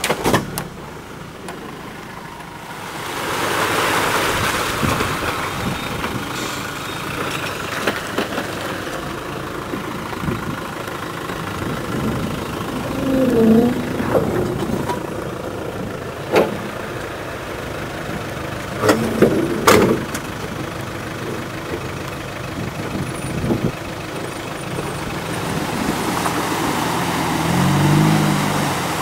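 Land Rover Defender's engine running while it drives off-road, rising and falling in level, with a few sharp knocks near the middle.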